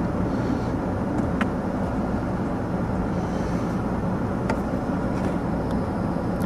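Steady low rumble of wind and a running vehicle, with three faint ticks spread through it.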